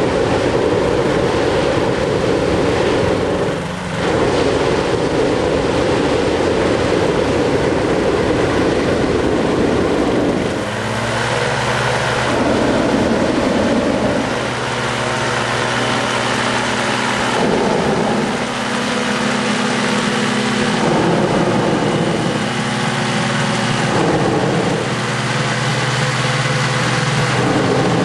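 Small airship's pusher-propeller engine running loudly, with rushing noise that rises and falls. About ten seconds in, a steady low engine hum settles in under the noise, which then swells again every few seconds.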